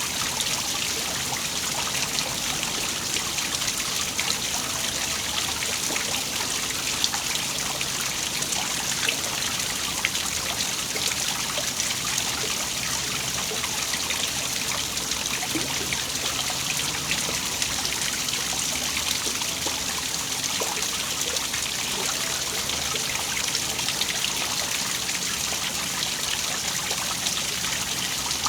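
Small waterfall: water falling and splashing in a steady hiss, with a constant patter of small droplet splashes.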